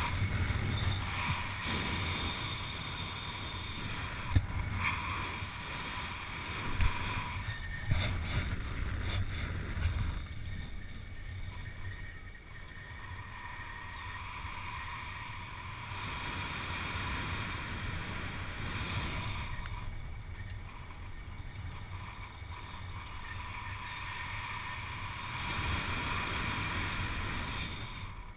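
Wind rushing over the camera microphone of a skydiver flying under an open parachute. It is louder and buffeting, with a few sharp knocks, for about the first ten seconds, then settles to a steadier, quieter rush.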